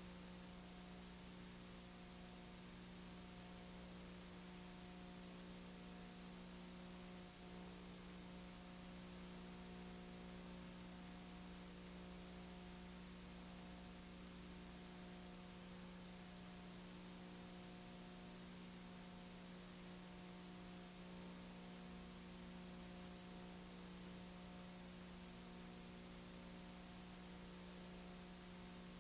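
Near silence: a steady low electrical hum with a faint hiss, unchanging throughout.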